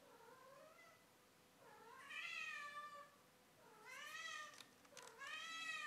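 A house cat meowing four times in drawn-out calls that rise and fall in pitch. The first call is faint, and the next three come about a second and a half apart.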